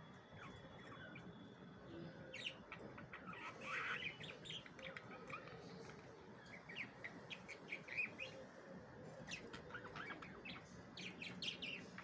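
Budgerigars chirping and chattering softly: quick high chirps in short bursts with pauses between, the happy warble of contented budgies.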